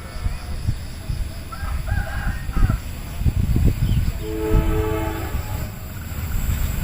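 Train locomotive horn sounding a steady chord for about a second, two-thirds of the way in, over a heavy low rumble.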